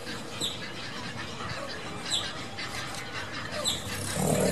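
Short, sharp, high-pitched animal calls repeating about every second and a half over a steady background hiss, then a louder, lower call near the end.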